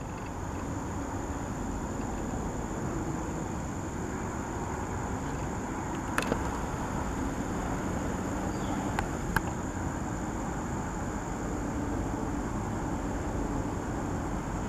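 Steady distant road traffic hum, with a thin high insect drone over it and two short clicks, one about six seconds in and one near the middle-late part.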